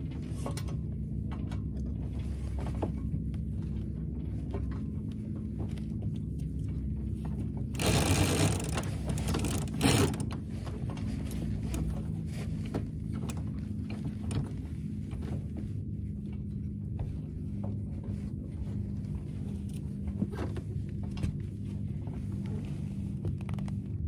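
Steady low rumble of wind and water on a small sailboat under sail. A louder burst of noise comes about eight seconds in and lasts a couple of seconds.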